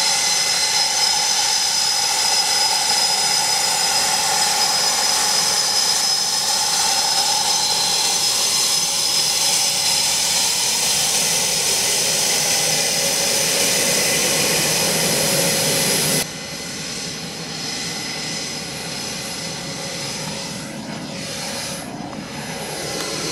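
Blue Angels F/A-18 jet taxiing, its twin jet engines running with a steady high whine over a loud rush. About sixteen seconds in the sound drops suddenly to a quieter, duller engine drone, which swells again near the end.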